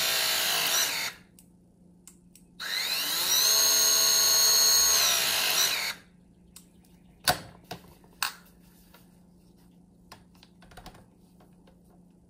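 Milwaukee M18 Force Logic cordless press tool's motor driving its jaw to crimp a copper press fitting: a whine that winds down about a second in, then a second run that rises, holds steady for about three seconds and winds down. A few sharp clicks follow a second or two later.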